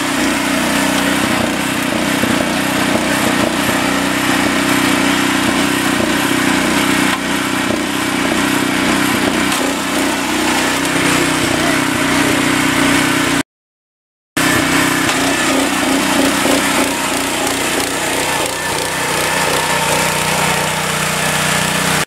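Small engine of a TR120 walk-behind mini rice reaper running steadily while it cuts standing rice. The sound drops out completely for about a second about two-thirds of the way through.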